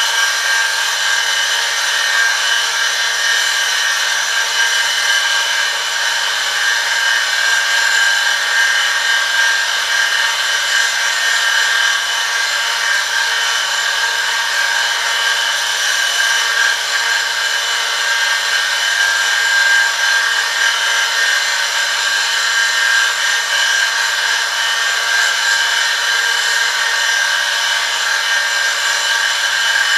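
Oil-lubricated friction test rig running. Its electric motor spins a steel ring against a metal test sample pressed under a 1 kg load, making a steady, loud, high-pitched metal-on-metal grinding whine.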